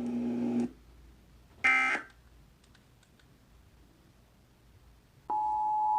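Emergency Alert System tones: a short data burst about two seconds in, then the two-tone EAS attention signal starting near the end, a steady pair of tones just under 1 kHz.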